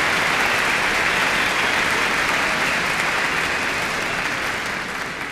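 Large concert-hall audience applauding after a song, the clapping slowly fading toward the end.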